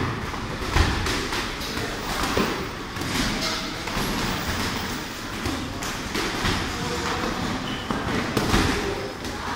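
Irregular thuds of gloved punches and kicks landing during kickboxing sparring, several pairs at once over a constant background of footwork and movement.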